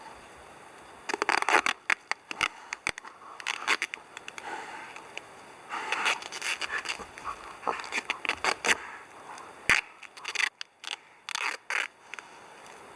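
Irregular scraping and scratching in short strokes, broken by sharp clicks and knocks.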